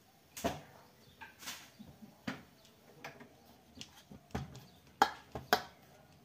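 Irregular sharp clicks and knocks of hand roti-making, from bangles, a steel bowl and a rolling pin, with the two loudest knocks about five seconds in.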